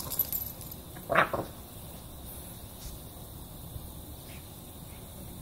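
Pekingese dog giving one short, sharp bark about a second in, over a steady hiss.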